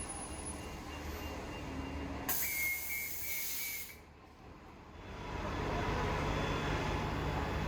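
Transit bus air brakes letting out a loud hiss with a thin whistling tone, starting and stopping abruptly and lasting under two seconds. A low bus engine rumble runs before it and swells again after a short lull.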